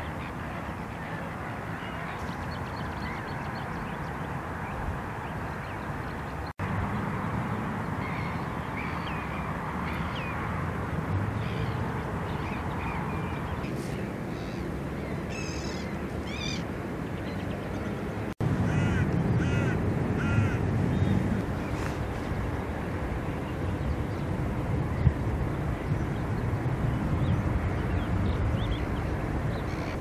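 Wind blowing on the microphone, with a flock of waterbirds giving short calls that come in bunches partway through. The sound drops out for a moment twice at cuts in the footage.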